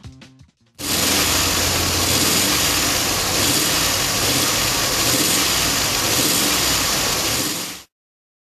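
Holden V8 engine of an HDT VC Brock Commodore running steadily, starting about a second in and cutting off suddenly near the end.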